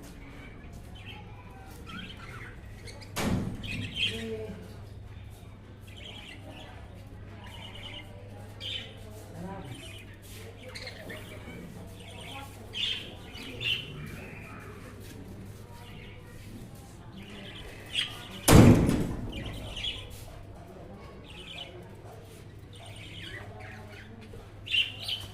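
Budgerigars chirping and chattering in short, scattered calls over a steady low hum, with two loud thumps, one a few seconds in and a louder one past the middle.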